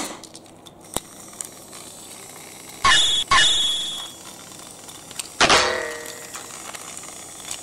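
Toy train playset parts knocking together: a few light clicks, then two sharp metallic clangs with a ringing tone about three seconds in, and a louder clattering crash with a ringing tail about two seconds later.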